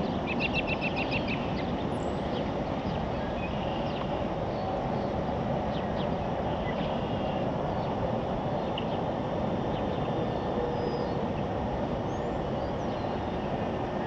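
Steady outdoor rushing noise, with a songbird's quick trill of about eight short notes about half a second in and a few faint chirps later.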